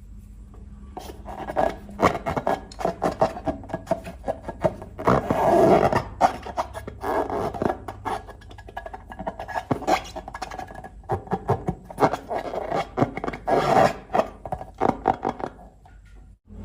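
Slime being squished and kneaded by hand, with irregular wet clicks, crackles and pops, thickest about five seconds in.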